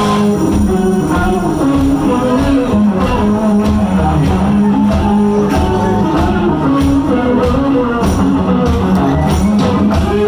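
Live rock band playing loudly: an electric guitar riff over a steady drum beat, with no vocals prominent.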